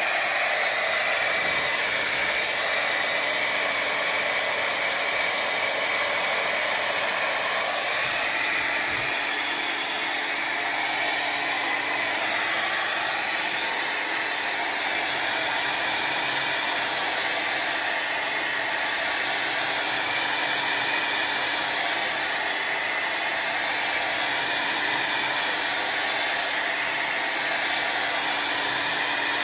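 Handheld Revlon hair dryer running steadily, blowing air with a constant motor whine.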